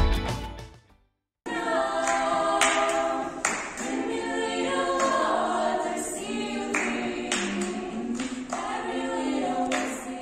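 Background music fades out in the first second; after a brief gap of silence, a group of voices starts singing in harmony without instruments, a cappella.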